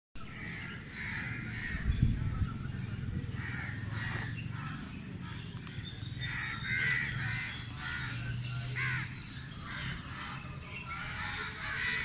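Birds calling over and over, in clusters of short calls, with a single thump about two seconds in.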